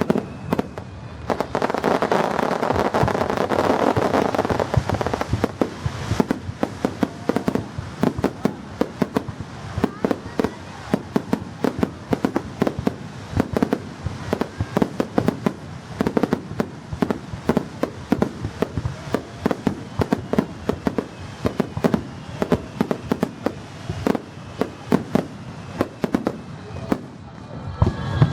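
Aerial fireworks going off in rapid succession: a steady run of sharp crackling pops and bangs, several a second, with a thicker continuous crackle in the first few seconds.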